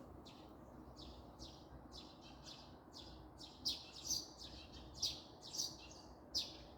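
Small songbirds chirping in a quick series of short, high chirps, two or three a second, growing louder from about halfway, over a faint low background rumble.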